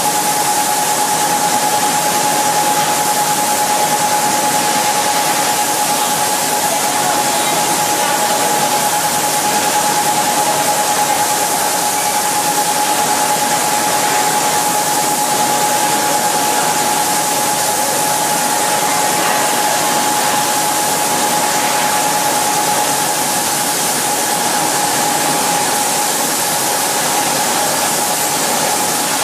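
Automatic fluorocarbon spray-coating booth running: a steady hiss of air with a constant whine in it.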